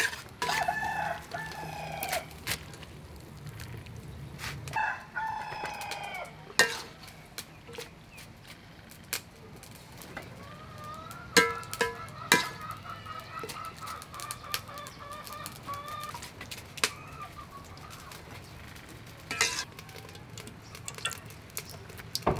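A rooster crowing twice in the first few seconds, each crow dropping off at the end, then a longer, steadier call from about ten to sixteen seconds in. Scattered sharp clicks and knocks throughout.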